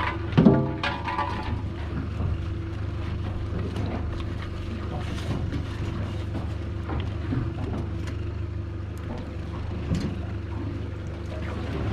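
Boat's outboard motor idling steadily, with scattered knocks and clatter; the loudest is a short sharp sound about half a second in.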